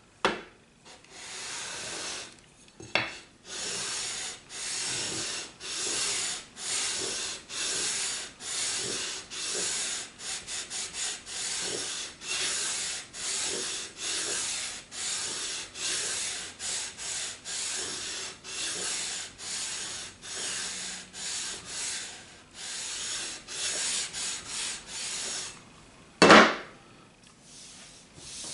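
Radius sanding block with sticky-back sandpaper stroked back and forth along a bare rosewood fretboard, levelling it to a 7.25-inch radius before refretting: a long run of rasping strokes, about three every two seconds, with a quicker flurry about ten seconds in. Near the end comes a single loud knock.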